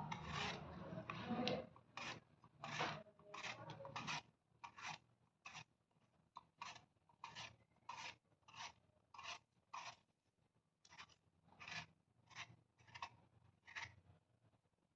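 Apple being peeled by hand: a run of short, faint peeling strokes of the blade across the skin, about one and a half a second, busier and louder in the first couple of seconds.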